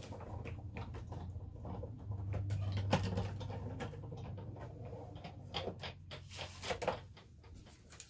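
Big Shot hand-cranked die-cutting machine being turned to cut a die through cardstock, with irregular clicks and creaks from the crank and the plates passing through the rollers, over a steady low hum.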